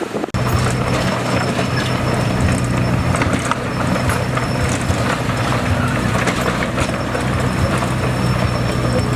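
Komatsu D21A bulldozer's diesel engine running steadily under load, with the steel tracks clanking and rattling. The sound starts abruptly just after the beginning.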